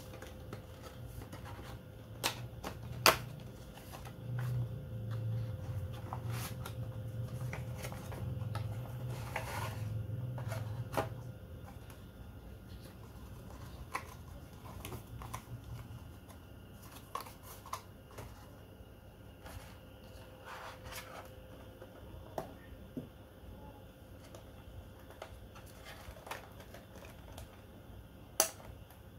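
Handling of small plastic items and packaging: scattered clicks and taps, the sharpest about three seconds in and near the end, over a low hum that fades out around the middle.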